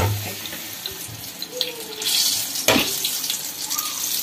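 Bondas deep-frying in hot oil in an iron kadai: a steady sizzle, with a knock right at the start and a louder surge of hissing about two seconds in as more batter goes into the oil.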